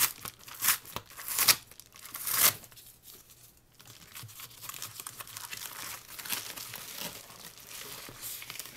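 A mailed package being torn open by hand: four loud ripping tears in the first two and a half seconds, then quieter crinkling and rustling of the packaging.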